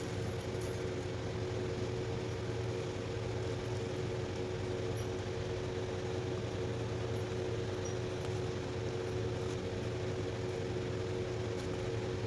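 A steady machine-like hum with a low drone and two constant tones above it, unchanging throughout, with a few faint ticks.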